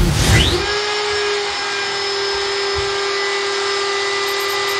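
CNC milling machine spindle whine rising in pitch about half a second in, then holding a steady whine as the end mill cuts through an aluminium tube.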